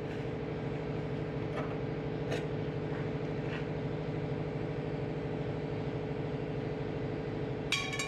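Steady machine hum with a low drone and a higher tone over it, a few faint ticks, and a short ringing metallic clink near the end.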